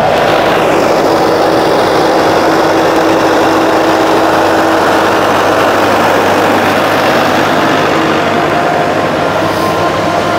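A tractor's diesel engine running steadily at close range, driving a pneumatic precision seeder whose fan adds steady tones to the engine noise.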